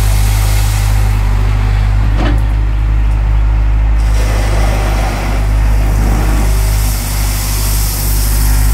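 Heavy earthmoving machine's diesel engine running steadily with a deep, even drone, and a short knock about two seconds in.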